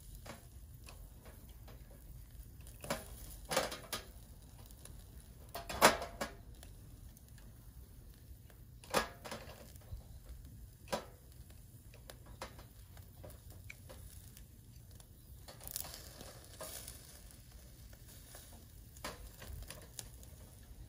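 Meat sizzling on the wire grill of a small tabletop BBQ stove, with metal tongs clicking against the grate now and then, the loudest click about six seconds in.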